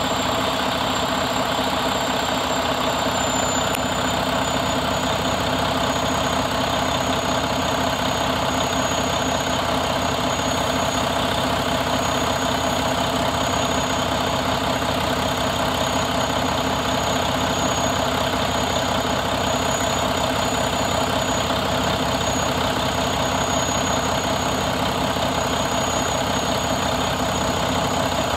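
2020 Mack MP8 13-litre inline-six diesel engine idling steadily, with a thin high whine over it.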